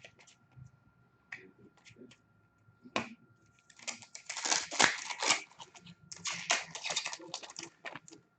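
Plastic wrapping being crinkled and torn in two long noisy stretches, after a few scattered light clicks and taps from handling.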